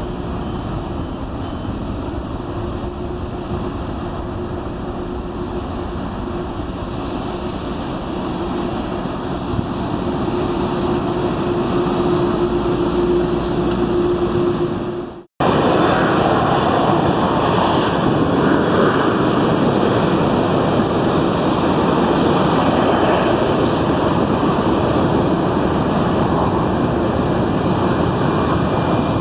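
Jet airliner engines at an airport: a steady, loud rush of engine noise with a faint steady hum over it. About halfway through it cuts off abruptly and comes back louder.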